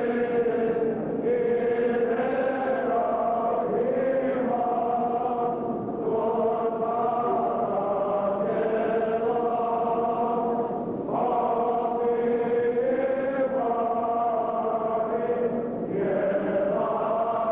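Armenian liturgical chant: voices sing long held notes in slow phrases of a few seconds each, with brief breaks between phrases.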